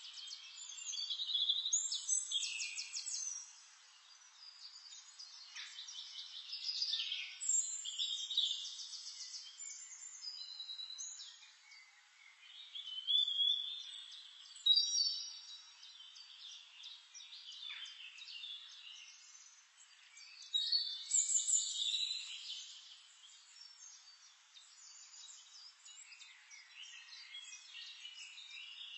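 Several songbirds chirping, trilling and whistling, with overlapping songs coming in bursts that rise and fall, over a faint hiss.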